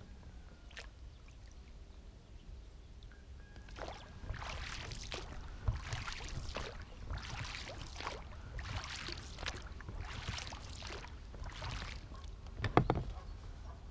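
Oar or paddle strokes splashing in the water at an even pace as a small boat is rowed across a pond, starting about four seconds in. Near the end comes a single loud knock, like wood striking the boat.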